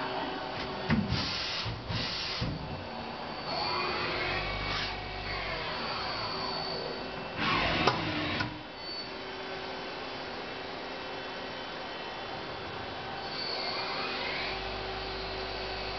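Kia SKT 15LMS CNC lathe running: a steady machine hum made of several fixed tones, with a motor whine that sweeps up and falls back, about four seconds in and again near the end. There are short bursts of hiss at about one to two seconds and about eight seconds.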